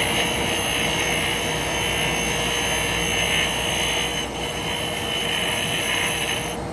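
Yellow Jacket stump grinder tooth being ground against a diamond grinding wheel: a steady high grinding hiss that eases off briefly about four seconds in and stops near the end. Under it, the steady drone of shop fans and a dust collector.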